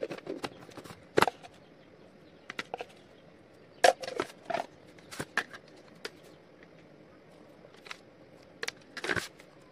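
Pot of food cooking on a stove: irregular sharp pops and clicks, a dozen or so, over a faint steady hiss.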